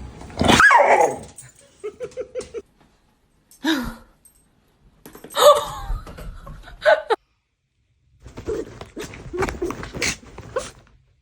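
Dog barking and yipping in short bursts with silent gaps between them; the loudest, about half a second in, falls in pitch.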